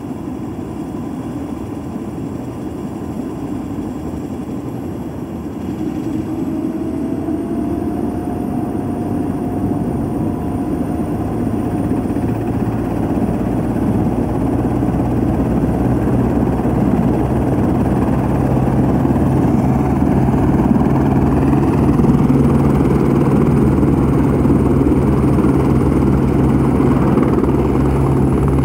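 Turbine helicopter starting up: the engine whine climbs in pitch about six seconds in and the rotor's low drone builds steadily louder as the main rotor spools up to speed.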